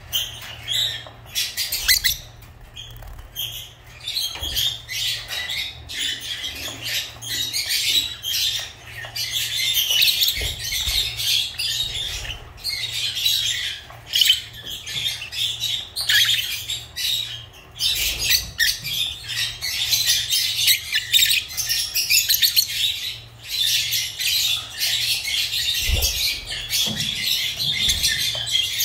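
Lovebirds chattering: rapid, high-pitched squawks and chirps that run almost without a break, with a short lull a few seconds in.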